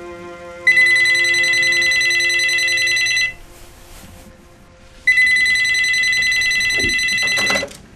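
Telephone ringing twice, each ring a loud, fast-trilling electronic ring about two and a half seconds long with a pause of about two seconds between. A faint held music tone fades out under the first ring.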